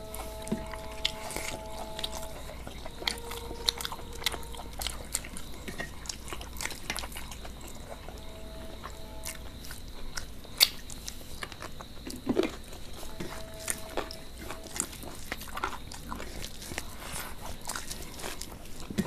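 Close-miked eating sounds: chewing mouthfuls of rice and chicken curry, with many wet mouth clicks and smacks, the sharpest about ten and a half seconds in.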